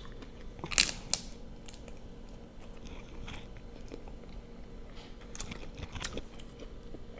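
Close-miked eating: biting and chewing boiled prawns, with a few sharp wet clicks and smacks about a second in and again around five to six seconds.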